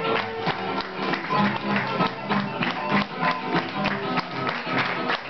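Live band music with pitched instruments over a steady percussive beat.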